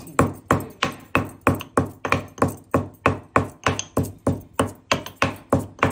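Stone pestle pounding cardamom pods in a stone mortar: steady, even knocks at about three strikes a second.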